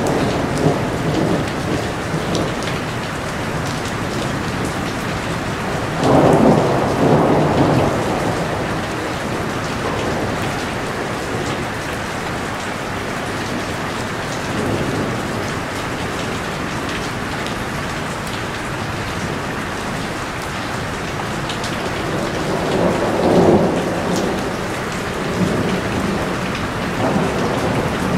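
Heavy rain falling steadily, a dense even hiss of drops, swelling louder with a deeper rumble about six seconds in and again near the end.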